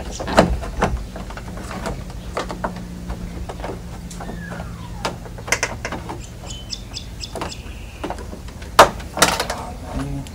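Holden Commodore VE exterior door handle being worked out of the door by hand: scattered plastic and metal clicks and knocks, the sharpest click near the end.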